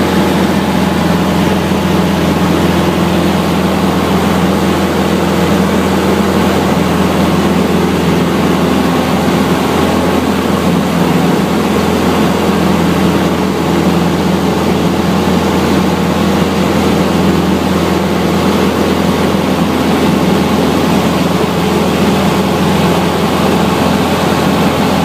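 Cessna 150's Continental O-200 four-cylinder engine and propeller running at a constant setting in flight, a loud, steady drone that never changes.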